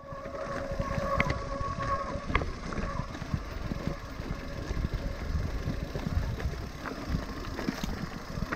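Mountain bike rolling fast down a rocky singletrack, rattling and knocking over stones, with wind rumbling on the action-camera microphone. A faint steady whine runs for about the first two and a half seconds.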